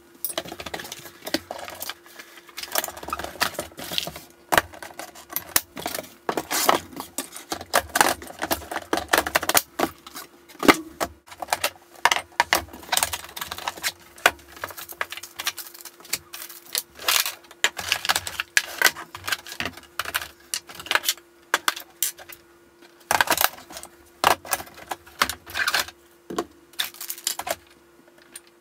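Irregular clatter, clicks and rustling of unpacking: cardboard packaging handled, hard plastic tool cases unlatched and opened, and tools, paper and plastic bags moved about and set down on a wooden desk.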